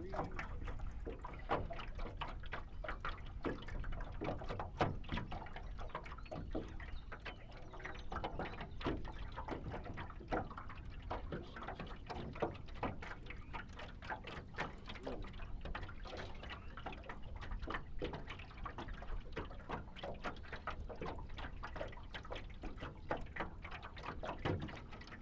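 Lake water splashing and dripping in many small irregular splashes as a pool-noodle float and its wet line are hauled out of the water into a small boat, over a steady low wind rumble on the microphone.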